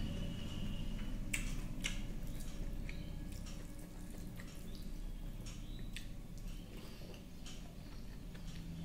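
Eating with the hand: wet chewing and lip-smacking clicks, with fingers mixing rice and curry on a steel plate, the clicks coming irregularly over a low steady hum.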